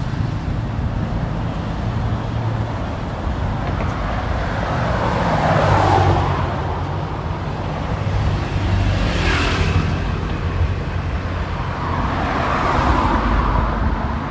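Road traffic: a steady low rumble of engines with vehicles passing, swelling about six seconds in, again around nine seconds, and near the end.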